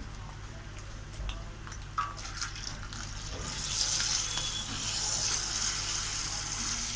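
Milk pouring from a plastic milk packet into a steel pot of milk, a splashing hiss that grows louder from about halfway through. A few short crackles of the plastic packet come before it.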